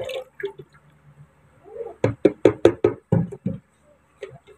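Dishes and a frying pan knocking against each other and the sink during washing up: a quick run of about eight sharp knocks about two seconds in, with a few fainter ones after.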